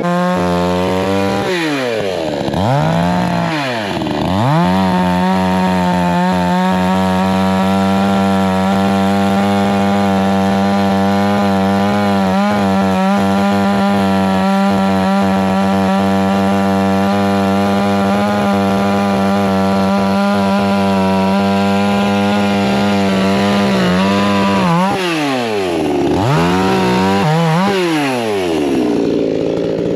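Two-stroke chainsaw running hard at a steady high pitch, cutting through wood. Its pitch sags and picks up again a couple of times near the start and several times near the end, as the throttle is eased and reopened.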